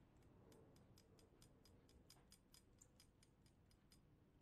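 Faint, even ticking, about five ticks a second, as a small threaded fitting is screwed back onto the Coleman 508A stove's brass generator tube by hand.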